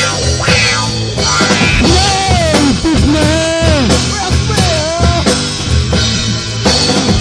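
Rock band demo recording: drum kit, guitar and bass playing steadily. A lead melody with bending, sliding notes comes in about two seconds in.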